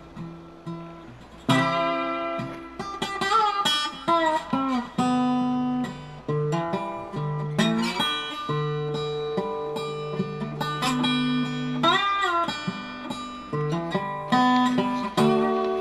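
Background music: acoustic guitar played by plucking, with ringing notes and some bent notes.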